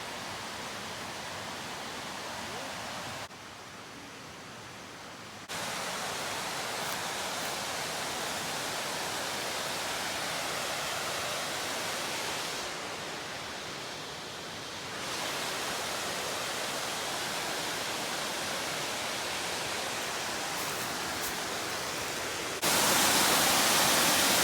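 Waterfall: steady rushing of falling water. It changes level in sudden steps, dropping about three seconds in, coming back up, dipping again midway, and jumping louder near the end.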